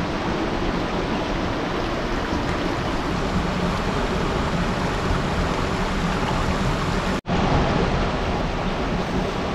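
Shallow river rushing over boulders close by, a steady rush of water. It breaks off for an instant about seven seconds in, then carries on.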